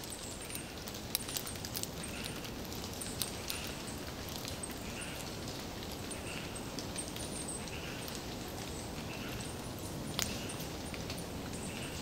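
Forest ambience: a steady background hiss with scattered sharp ticks and clicks, and a soft, short animal call repeated about once a second through most of it.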